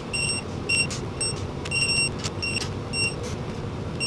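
Short, high electronic beeps, repeated at irregular intervals, from a digital torque wrench as the camshaft bearing cap bolts are tightened to about 10 lb; a few faint ratchet clicks in between, over a steady low hum.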